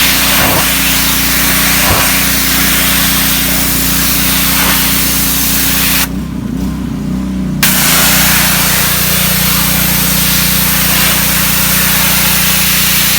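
Ryobi 3000 psi pressure washer, its Honda GCV160 gas engine running steadily under the loud hiss of the high-pressure water jet stripping paint. About six seconds in the spray cuts off for a second and a half while the engine keeps running, then the jet starts again.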